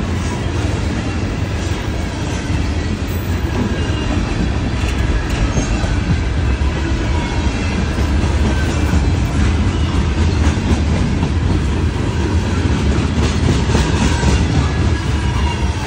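Freight cars of a Norfolk Southern train rolling past at a crossing: a steady heavy rumble with wheels clicking over rail joints, the clicks clearer near the end, and a faint thin squeal from the wheels.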